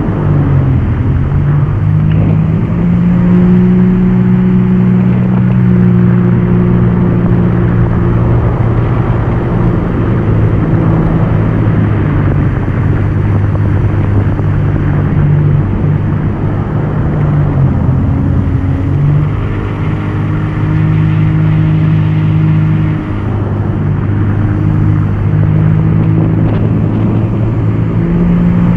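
Yamaha WaveRunner VX Deluxe personal watercraft engine running hard at speed, over the rush of water spray. The engine note holds steady but steps down and back up a few times as the throttle changes.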